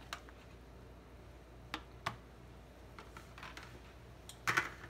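A handful of light, separate clicks and taps, a second or more apart, as a plastic bowl and kitchen utensils are knocked and handled over a saucepan and set down on a cutting board, over a low steady hum.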